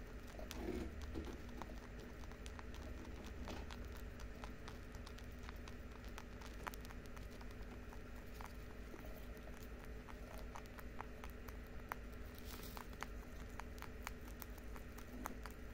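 Lop-eared rabbits chewing hay: a faint, irregular run of small crisp crunching clicks as the dry stalks are ground down, over a steady low hum.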